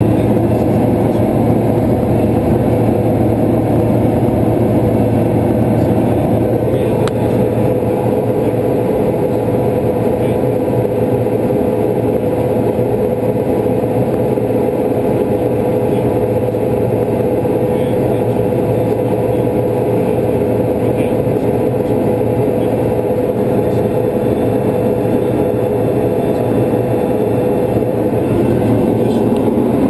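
Pilatus PC-12's single turboprop engine and propeller running steadily in cruise, heard inside the cockpit as a constant drone: a steady hum over a low rumble.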